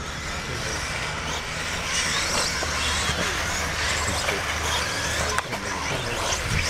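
Electric 1/10-scale RC off-road buggies racing, their motors whining high and gliding up and down as they speed up and slow down, over a low rumble, with a short sharp click near the end.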